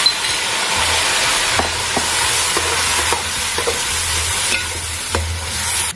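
Masala-marinated potato strips sizzling steadily in hot oil in an aluminium karahi as they are stirred with a slotted metal spoon, which knocks against the pan a few times.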